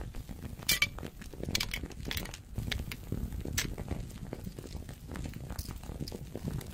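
Pills being pressed out of blister packs: a busy run of small clicks and crinkling crackles, with a few sharper snaps in the first four seconds.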